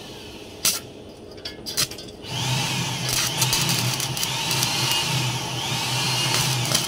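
A few sharp metal clicks, then about two seconds in an electric hand power tool starts up and runs steadily, its whine rising and falling in regular swells as it works the sheet-metal cable tray.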